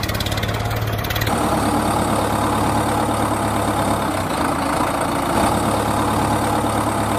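Engine sound idling with a rapid, even pulse, switching abruptly about a second in to a different steady running engine sound. It is an engine sound track laid over toy tractor and tipper truck footage.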